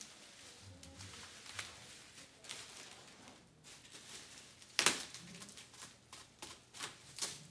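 Light rustling and scattered clicks of packaging being handled during a chair unboxing, with a sharp knock about five seconds in and a couple of smaller taps near the end.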